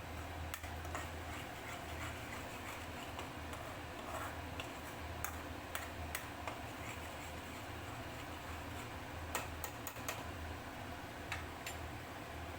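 Irregular light ticks and taps from a spatula stirring a thick ginger-and-jaggery paste in a kadai, over a steady low hum.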